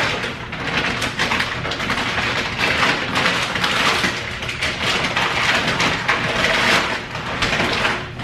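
Plastic packaging and bags crinkling and rustling continuously, full of small crackles, as groceries are handled.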